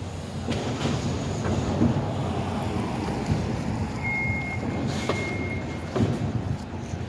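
Heavy construction machinery running with a low steady engine rumble. About halfway through, a vehicle's warning beeper sounds one high steady tone for roughly two seconds, and there are a couple of sharp knocks near the end.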